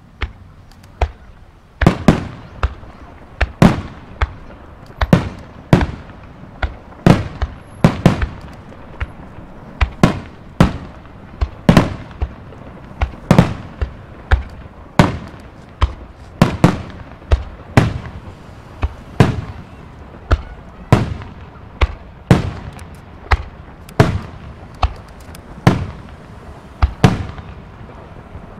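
Aerial firework shells bursting overhead in quick succession: after a lone bang, sharp booms follow about two seconds in at roughly one to two a second, each with a short echoing tail.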